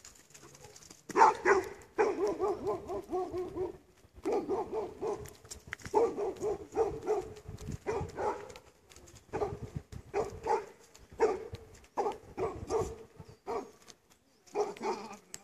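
A dog barking over and over in quick runs of barks. The runs start about a second in, break off for short pauses, and come back once more near the end.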